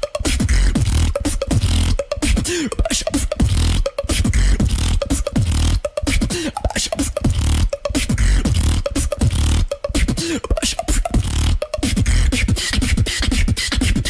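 A beatboxer performing into a microphone: a dense, fast run of tongue clicks woven into a steady beat of deep bass kicks, with short pitched glides in between.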